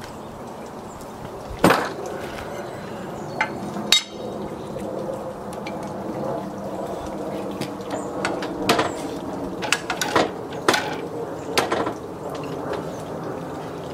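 Wooden knocks and clunks as a heavy 6x6 timber post is marked with a square and shifted on a metal miter-saw table. There is a sharp knock about two seconds in, another near four seconds, and a run of knocks between about nine and twelve seconds.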